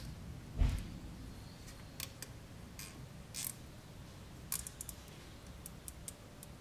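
Hands working on wiring in a car's engine bay: a dull knock about half a second in, then scattered light clicks and ticks of plastic connectors and parts being handled.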